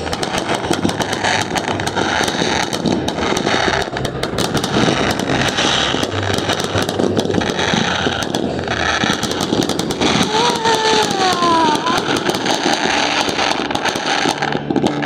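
Fireworks finale: a dense, continuous barrage of cracks and bangs, with falling whistles about two-thirds of the way through.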